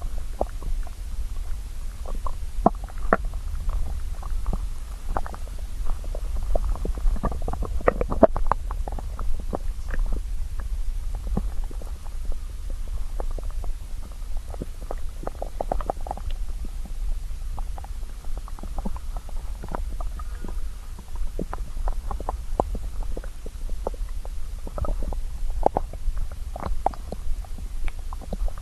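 Hungry stomach growling: a steady low rumble under many short, irregular gurgles, busiest about a quarter of the way in and again near the end.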